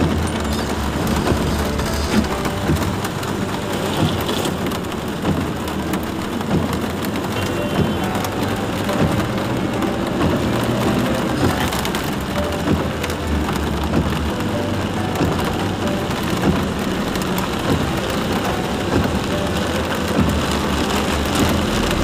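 Heavy rain drumming on a car's roof and windshield, heard from inside the cabin as a dense, steady patter of many small drop impacts, over the low rumble of the car moving along the waterlogged road.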